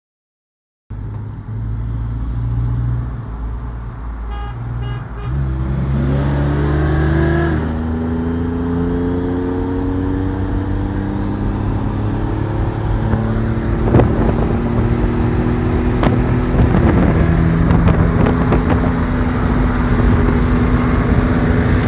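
GMC Sierra pickup's engine heard from inside the cab, running steadily at a roll and then going to full throttle a few seconds in. It pulls hard, its pitch climbing and stepping at a couple of gear changes, with a single sharp tick about two-thirds through.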